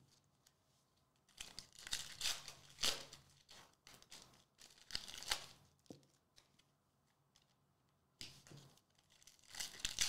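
Foil wrapper of a Topps Chrome basketball card pack being torn open and crinkled by hand, in several separate bursts of tearing and rustling.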